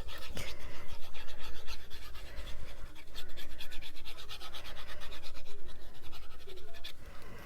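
Rapid back-and-forth rubbing on paper, pressing freshly glued paper down flat so it sticks, with a short pause about three seconds in.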